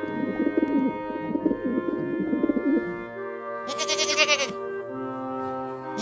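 Feral pigeons cooing over steady background music for about the first three seconds, then a goat bleats once, a quavering call about four seconds in.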